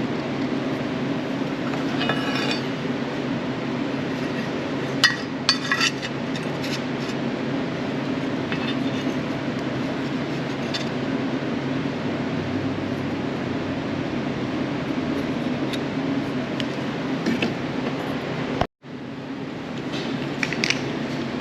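Scattered light metallic clinks and taps of sheet-metal work, a few around two seconds in and a cluster around five to six seconds, over a steady low hum. The sound drops out briefly near the end.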